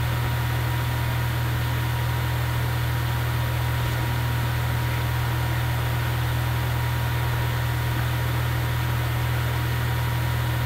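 Steady low hum with an even hiss underneath, unchanging throughout.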